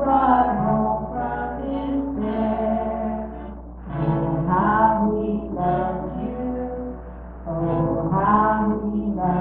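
Church worship band playing a song, with women singing the melody over acoustic guitar accompaniment in long, held phrases.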